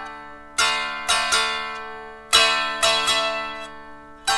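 Dulcimer played solo in an improvisation. Chords are strummed in short groups of two or three strokes, each ringing and fading away, while the drone strings keep sounding underneath.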